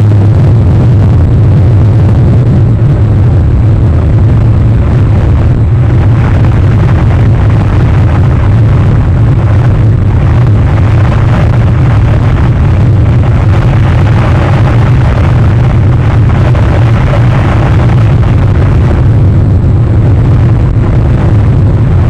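Steady, loud low rumble of wind buffeting the outdoor camera's microphone.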